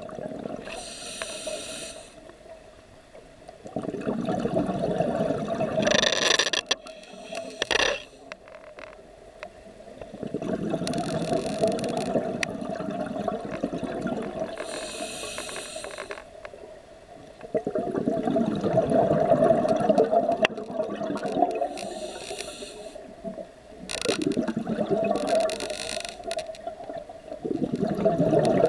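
Scuba breathing through a regulator, heard underwater: short hissing inhalations alternate with longer rushes of exhaled bubbles, several breaths in a row.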